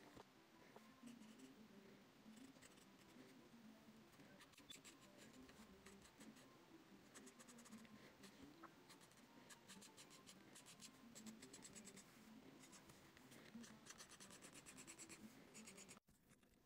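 Faint scratching of a mechanical pencil's graphite lead across paper in quick, uneven sketching strokes. It cuts off abruptly near the end.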